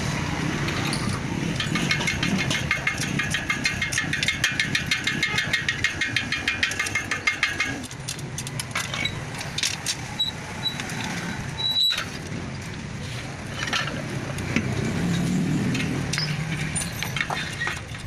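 Light metal clicks of wire spokes and spoke nipples being handled as a motorcycle wheel is laced, over a steady low engine rumble. A fast, even run of clicks lasts about six seconds before stopping.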